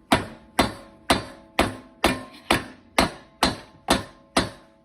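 Hammer blows on a snowmobile engine's stuck cylinder head to knock it loose: about ten sharp, evenly spaced strikes, roughly two a second, each ringing briefly.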